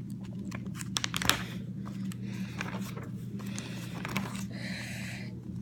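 Handling noise: scattered clicks and rustles as the phone and sketchbook are moved about, over a steady low hum.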